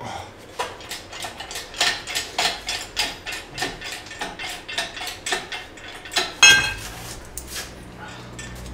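Engine crane and its chain and load leveler being worked as they take up a hanging engine's weight: a run of metallic clicks and clanks, about two a second, with one louder clank about six and a half seconds in. A low steady hum follows it.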